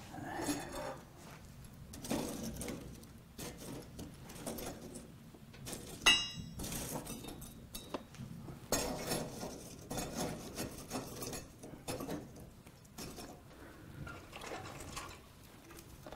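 Long-handled metal pan knocking, scraping and clinking on the burning coals of an open fire while its contents heat, with one sharp ringing metal clink about six seconds in.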